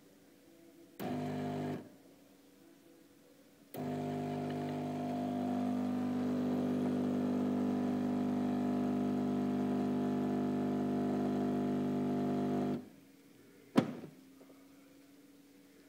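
WMF automatic coffee machine running: a short burst of under a second, then a steady hum at one pitch for about nine seconds that cuts off suddenly, followed by a single sharp click.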